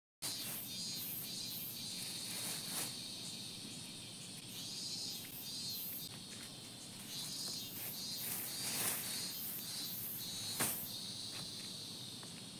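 A steady chorus of summer insects chirring, with short rustles and crackles from dry garden leaves and debris being handled by hand; the sharpest crackle comes about ten and a half seconds in.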